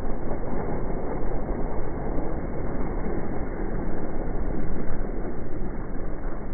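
Outdoor street ambience from a snowstorm, slowed down with the 240 fps slow-motion footage so that it becomes a deep, continuous, wavering whoosh with no clear events.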